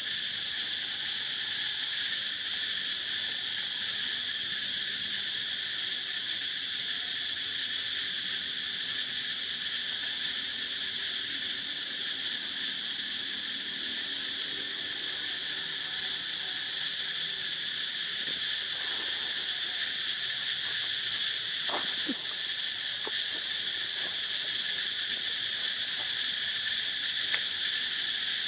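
Steady chorus of insects, a high continuous buzzing drone that does not let up. A few faint, short knocks or scrapes come through about three-quarters of the way in.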